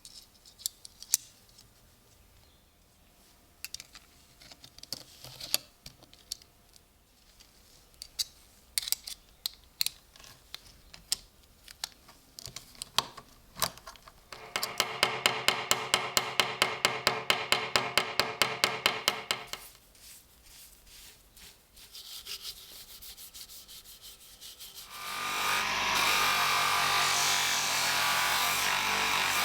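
Hand work on a small wooden and metal workpiece: scattered light clicks and taps, then a few seconds of fast, even rasping strokes, about five or six a second. A steady power tool starts running about four seconds before the end and is the loudest sound.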